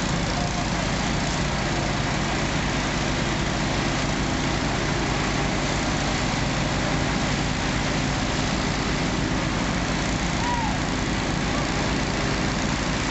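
Fire apparatus engine running steadily, a deep even hum under a constant hiss.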